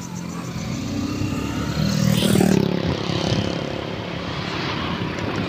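Road vehicle's engine and road noise while travelling along a road, the engine sound swelling about two seconds in.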